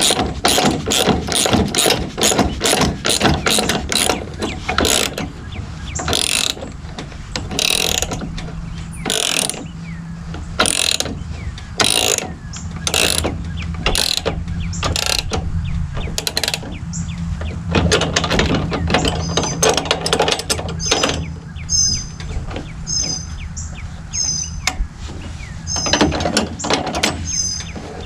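Hand socket ratchet clicking as it tightens a bolt with a wrench holding the nut: quick ratcheting at about four to five clicks a second, slowing after a few seconds to separate clicks roughly a second apart, with another quick run near the end. A steady low hum runs underneath, and short high chirps repeat over the last several seconds.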